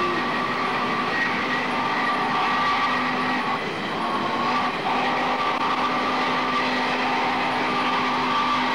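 Steam locomotive train running by, its noise steady with several held tones over it that break off briefly a little before the middle.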